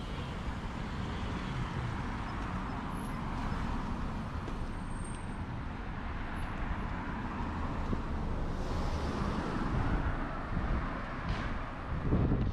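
Road traffic: cars going by in a steady rumble of engines and tyres, getting louder toward the end.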